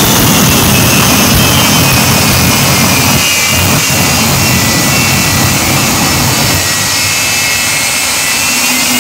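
Aftershock jet fire truck's jet engine running at high power while shooting big flames from its exhaust: a loud steady roar with a whistling whine that falls in pitch and then rises again near the end. A heavy low rumble runs under the first six seconds, while the biggest fireballs go up, then eases off.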